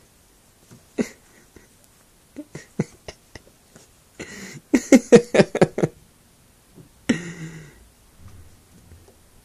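Small puppy yipping and growling as it play-wrestles with a hand. Short scattered sounds, then a quick run of loud yips around the middle and a rougher growl a second or so later.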